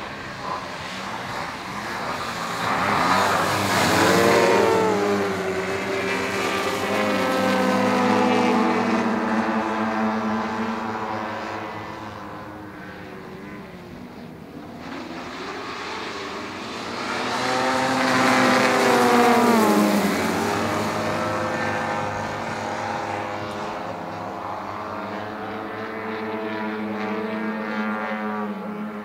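A group of propeller-driven radio-controlled 3D aerobatic model planes flying together, several engine notes overlapping. The sound swells and bends down in pitch as they pass by, once about four seconds in and again about nineteen seconds in.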